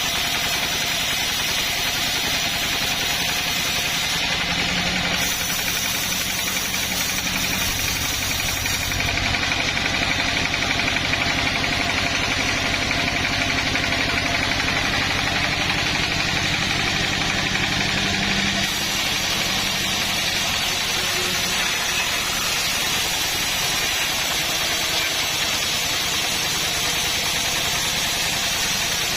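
Sawmill engine running steadily, a little louder for about ten seconds in the middle.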